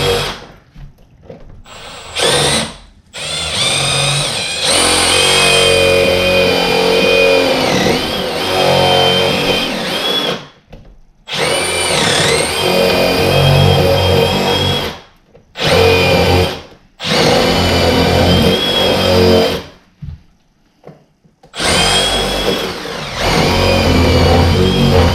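Power drill with a 5/8-inch self-feed bit boring a row of holes into the wooden door edge, to clear out the mortise without a router. It runs in about six bursts of a few seconds each with short stops between, its whine dipping in pitch as the bit loads up.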